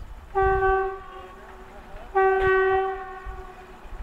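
WAG7 electric freight locomotive's horn sounding two short single-note blasts, each under a second, about two seconds apart: the loco pilot honking in greeting.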